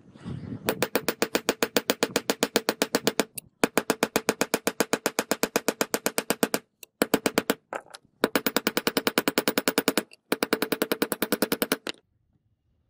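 Small hammer tapping rapidly on a knife blade's bolster pin over a steel block, peening the pin to rivet the brass bolster in place. It goes as light ringing metal strikes at about ten a second, in runs of two to three seconds with short pauses between.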